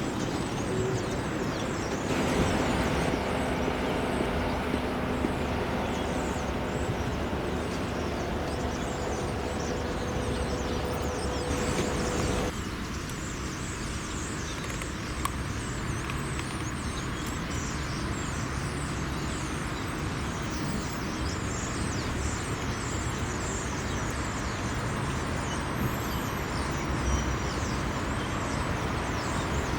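Construction-site and traffic noise: a steady rumble of machinery and vehicles. A steady droning engine tone runs over it for about ten seconds and cuts off suddenly about twelve seconds in.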